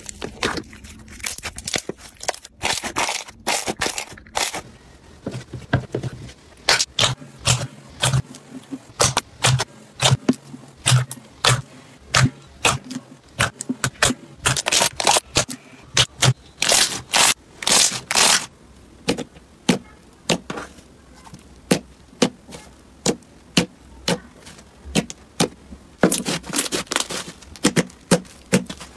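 Slime being squeezed and pressed by hand, giving irregular crackles and pops, some in quick runs.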